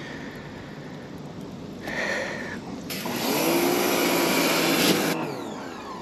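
Pressure washer spraying into an AC evaporator coil to rinse out the coil cleaner: a hissing burst of about two seconds starting about halfway through, with the pressure washer's motor note rising and then falling under the spray.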